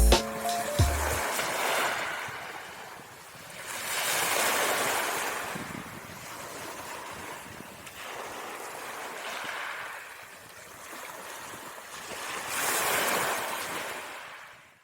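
Wind blowing in gusts, rising twice, about four seconds in and again near the end, then dying away.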